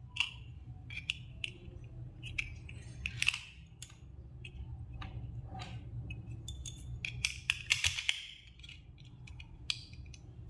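Light clicks and brief scrapes of the small plastic digital thermometer and its parts being handled, scattered irregularly with a denser run of clicks near the end, over a low steady hum.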